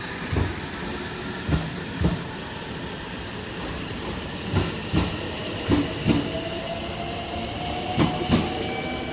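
Railway train running on rails: a steady rumble broken by sharp clacks, mostly in pairs, as the wheels cross rail joints. A thin tone rises slowly in pitch from about six seconds in.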